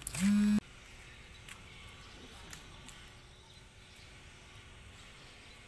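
A loud voice held on one steady pitch, cut off abruptly about half a second in. After it there is only faint outdoor background with a few soft clicks.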